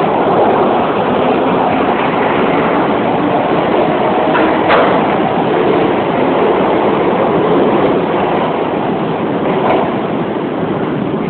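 Steady rushing noise of a train running through a railway station, with a couple of faint clicks about four and a half seconds in.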